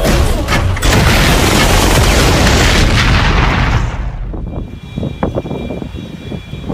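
Loud edited-in sound effect: a broad rushing roar, like a jet or blast, for about four seconds. It then falls away to a few quieter knocks over a faint steady high tone.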